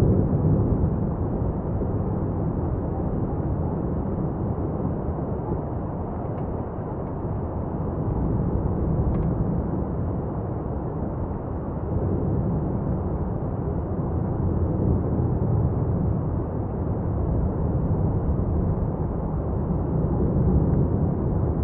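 Lava fountain at Etna's South-East crater during a paroxysm: gas and lava jetting from the vent make a continuous low rumble that swells and eases a little.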